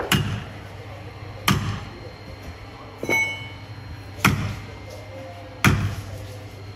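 Four heavy, sharp knocks of blows struck on timber, each with a short ring, and a lighter metallic clink about three seconds in, over a steady low hum.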